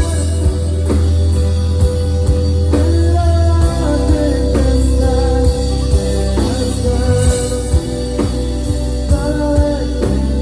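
Live Christian worship band playing at rehearsal, with a heavy bass line, held chords and drum hits.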